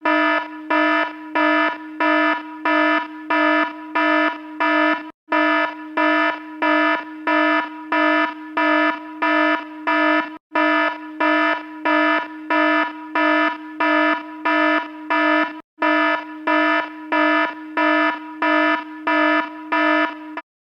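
Electronic fire alarm sounding: a loud, buzzy horn tone pulsing evenly about three times every two seconds, with a brief break roughly every five seconds. It stops just before the end.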